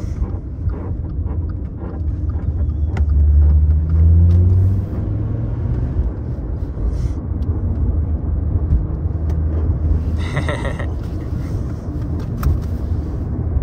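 Cabin noise of a 2011 Volkswagen Golf wagon with a five-cylinder engine under way: a steady low engine and road rumble that swells about three seconds in, with a brief hiss about ten seconds in. The car carries a noise that the occupants put down to the CV axle or wheel bearing, though they are not sure.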